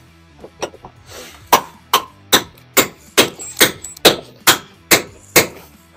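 Lump hammer blows, about ten in a steady rhythm of two or three a second, starting about a second and a half in, on a very tight fitting under the car.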